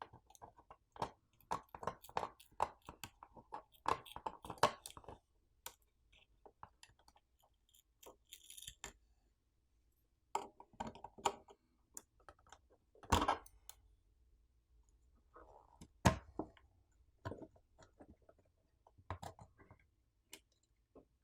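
Scattered small clicks and taps of a pry tool against the snap-on coaxial antenna connectors on a mini PC's Wi-Fi card as they are unclipped. The taps come thick in the first few seconds, then sparse, with two sharper clicks about 13 and 16 seconds in.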